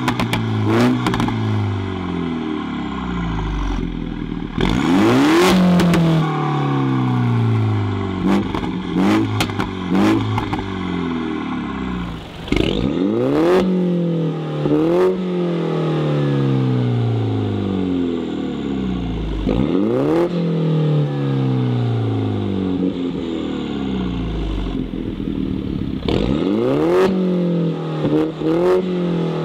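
Mini Cooper S John Cooper Works' 2.0-litre turbocharged four-cylinder engine revved again and again while standing still, heard at its centre twin exhaust. Each blip climbs sharply and falls away more slowly, with a few bigger revs, and pops and crackles as the revs drop.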